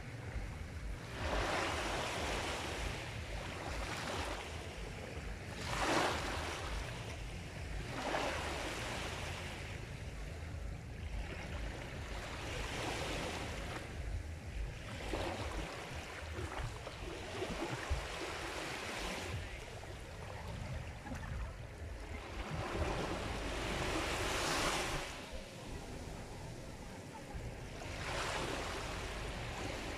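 Sea surf: waves breaking and washing in, a broad rushing noise that swells and falls back every few seconds over a steady low rumble.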